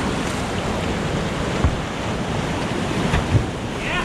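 Creek whitewater rushing steadily over a rocky drop, with a couple of short knocks partway through.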